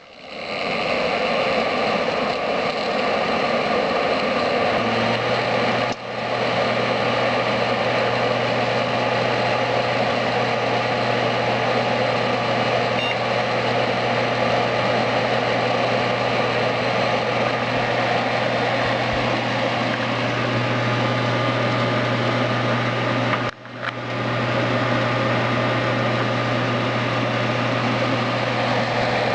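Desktop computer running loudly, its fans giving a steady whirring noise with a low hum that comes in about five seconds in. The sound dips out briefly twice.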